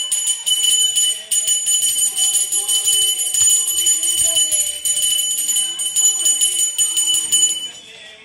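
Brass hand bell rung rapidly and without pause during an aarti, a continuous bright clanging that stops abruptly about half a second before the end. A sung devotional melody carries on quietly underneath.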